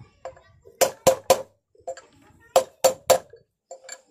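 Hammer striking a steel chisel set against a motorcycle wheel bearing, tapping the bearing down into its seat in the wheel hub. Sharp metallic strikes come in two quick runs of three.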